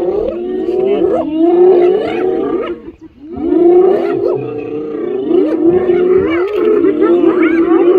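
A clan of spotted hyenas calling over one another in a dense, loud chorus of wavering, gliding cries. The chorus breaks off briefly about three seconds in.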